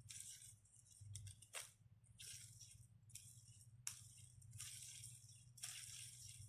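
Faint, irregular short rattles and a couple of sharp clicks of hard plastic as a fidget toy is handled and spun.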